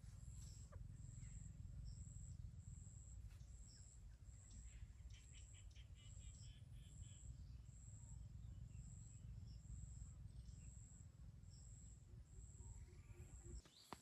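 Faint insect chirping: one high-pitched pulse repeating evenly, about three every two seconds, over a low rumble. A brief faint bird chatter comes about halfway through.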